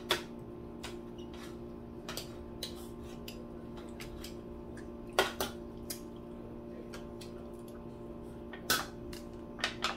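Forks and spoons clinking against plates and foil trays during a meal: scattered sharp clinks, the loudest about five seconds in and again near nine seconds, over a steady low hum.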